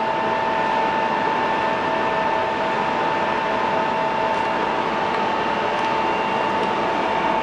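Steady ventilation hum with two constant high tones, heard from inside a car.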